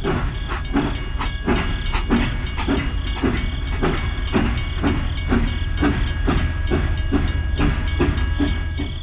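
Toy steam locomotive running along its track with a steady chuffing, about two beats a second, over a low steady hum and a faint held high tone.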